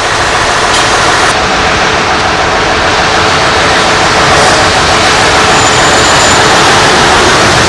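Heavy diesel engines of fire-department crane trucks running steadily: a loud, even rushing noise with a faint steady hum underneath.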